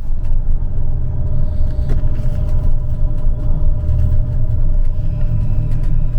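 Trolleybus under way: a loud, steady low rumble with a faint steady whine above it.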